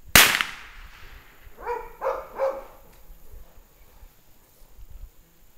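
A single sharp bang that rings out briefly, then three short calls close together about two seconds in.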